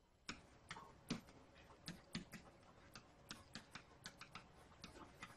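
Faint, irregular light clicks and taps of a pen stylus on a tablet screen during handwriting.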